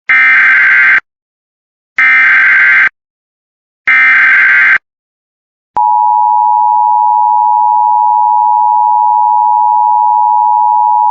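Emergency Alert System SAME header sent three times: harsh digital data bursts of about a second each, a second apart, which announce a new alert. About six seconds in, the steady EAS attention tone starts and holds.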